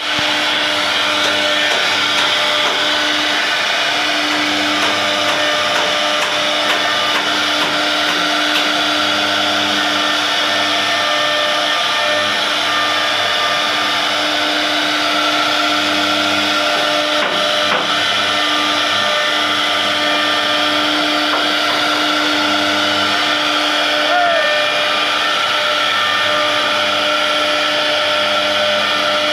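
CNC router spindle running steadily while carving a furniture design, a constant whine over a loud hiss of cutting.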